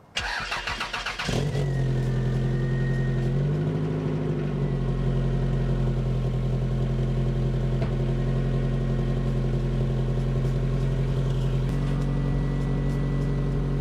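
Car engine cranked on the starter for about a second, catching and settling into a steady idle, with a brief rise in revs about four seconds in. The exhaust runs without its catalytic converter, a clamped flanged pipe in its place, and is still blowing a little at that joint.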